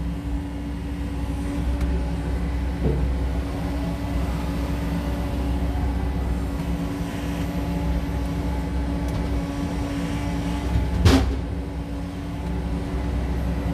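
SANY SY80U mini excavator's diesel engine running steadily under hydraulic working, with a constant low hum and a steady tone. One sharp knock about eleven seconds in.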